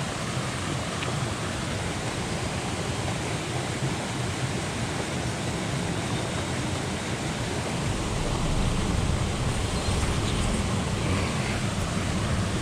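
Heavy rain falling steadily, a dense even hiss, with a low rumble growing stronger about eight seconds in.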